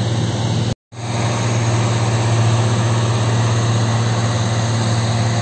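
Motor grader's diesel engine running steadily under load, a deep even drone. The sound cuts out completely for a moment just under a second in, then carries on unchanged.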